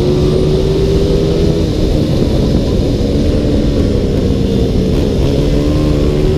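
Onboard sound of a CG 300 race motorcycle's single-cylinder engine at high revs down the straight. The pitch drops about a second and a half in as the rider eases off for the curve, then climbs again near the end, with heavy wind noise on the microphone.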